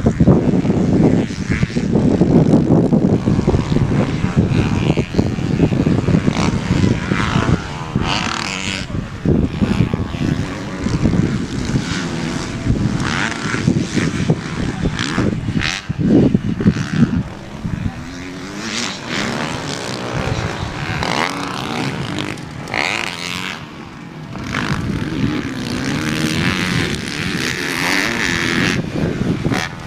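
Several motocross dirt bikes racing around the track, their engines revving up and down in overlapping rises and falls. Loudest at first, fading somewhat in the middle, then building again near the end as the bikes come back around.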